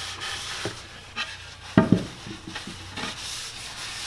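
A cloth rubbing and wiping over the face of a cherry-wood pizza peel, buffing in its mineral oil and beeswax finish. There is a small knock about a second in and a sharp wooden knock a little later, the loudest sound here.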